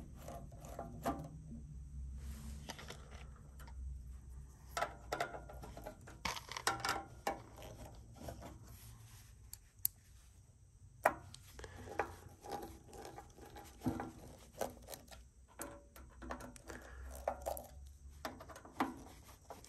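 Hands handling and fitting parts of a tube amplifier kit: scattered light clicks, taps and rustles, with a sharper tick about eleven seconds in, over a low steady hum.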